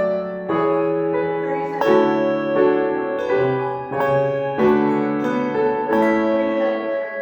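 Handbell choir ringing a piece in chords, a new chord struck about once or twice a second and each left to ring on.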